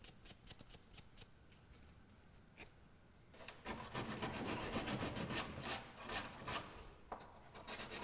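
Sanding cloth rubbed by hand over the flame sensor of a Toyo oil-fired space heater, scouring its deposits clean. A few scattered short strokes at first, then quicker, steadier rubbing from about halfway until near the end.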